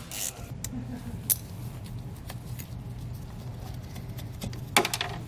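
Scattered light clicks and knocks of hands and tools working the bolts out of a plastic RV waste valve flange, the loudest right at the start and a cluster near the end, over a steady low hum.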